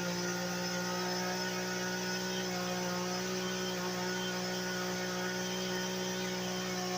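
Two-stroke chainsaw running at high speed at a steady pitch, held in a cut through a tree trunk. Its chain is dull: the owner says the blade has had it and the cut went less deep than it should.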